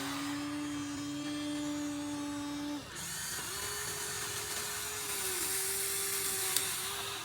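Electric gear motors of a Huina 1593 RC excavator whining steadily. The pitch shifts as it switches between functions, with a brief stop near 3 s and a sharp click about six and a half seconds in.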